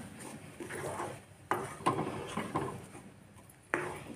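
A spatula stirring grated coconut through thick, sticky jaggery syrup in a kadai, with a few irregular scrapes and knocks against the pan. The sharpest knocks come about one and a half, two and four seconds in.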